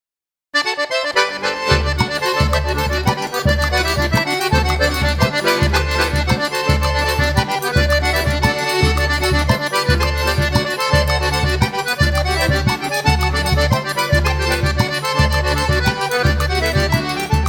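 Forró pé de serra instrumental: accordion playing the melody over a steady, evenly pulsing bass beat. The music starts abruptly about half a second in, after silence.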